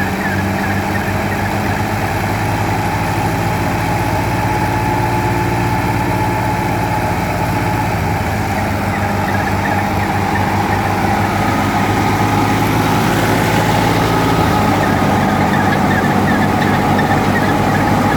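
Wheat thresher and its driving engine running steadily: a constant low engine drone with a thin steady whine above it. A second, higher whine comes in about two-thirds of the way through.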